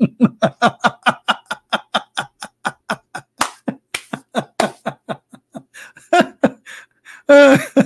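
A man laughing hard: a long run of rapid ha-ha bursts, about five a second, that slows and trails off near the end.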